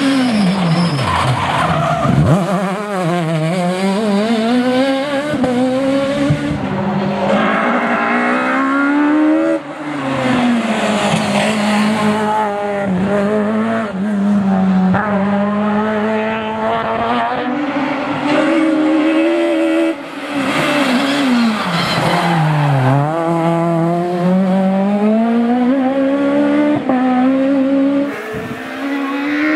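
Peugeot 306 Maxi rally car engines revving hard, the pitch climbing through the gears, then dropping sharply on braking and downshifts before climbing again. The sound changes abruptly from one run to the next, about 10 s and 20 s in, with tyres squealing in places.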